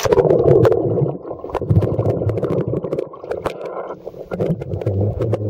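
Muffled underwater sound of pool water, heard by a submerged microphone: a low rumble and gurgling of stirred water and bubbles, with scattered small clicks. It is loudest in the first second, as the microphone plunges under.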